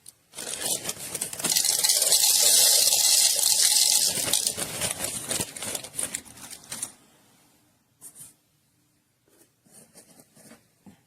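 SHARDOR 64 mm flat-burr electric coffee grinder grinding a 10 g single dose of espresso beans: a loud crackling grind that thins to scattered cracks as the last beans pass through the burrs, stopping about seven seconds in. A few faint knocks follow.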